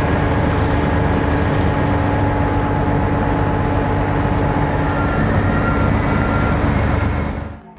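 Hitachi EX3600-6 mining excavator's MTU 12V4000 diesel engine running loud and steady under work. The sound cuts off sharply near the end.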